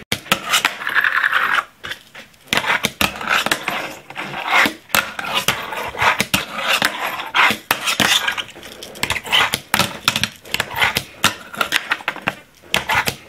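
Fingerboard wheels rolling across a wooden tabletop, with many sharp clacks as the small deck is popped, lands and knocks against a wooden box obstacle with a metal-edged ledge, and bouts of scraping along the ledge.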